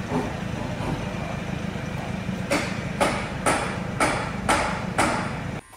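Mitsubishi FTO's V6 engine running, a steady rumble. From about halfway through, a sharp burst repeats about twice a second.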